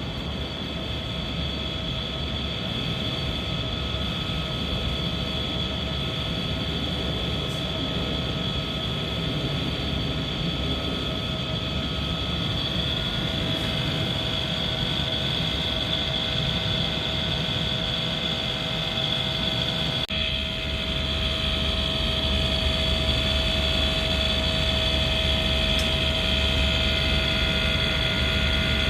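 Daikin air conditioner outdoor unit running with a steady high-pitched whine over a low hum and several fainter steady tones, with a brief dip about two-thirds of the way through. This is an abnormal noise from the unit.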